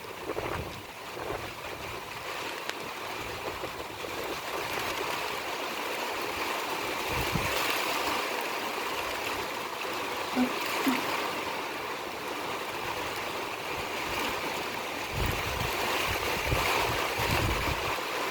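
Heavy rain pouring down in a steady hiss of a downpour, growing gradually louder, with a few brief low rumbles.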